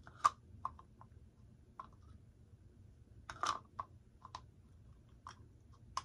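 Plastic propeller spinner being worked and turned by hand on a model plane's three-blade prop: scattered light clicks and scrapes of plastic on plastic, with a sharp click just after the start and a longer scrape about three and a half seconds in.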